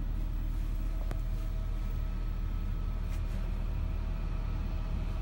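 Steady low hum of an engine running, heard inside a motorhome's cabin, with one light click about a second in.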